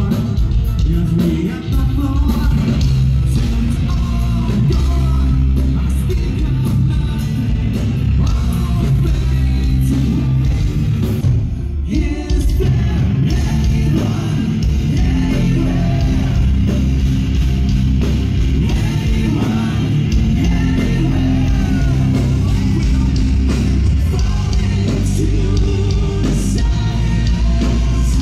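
Rock music with a singing voice over guitar and drums.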